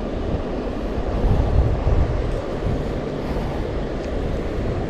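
Steady rushing of flowing stream water, with low rumbling from wind on the microphone.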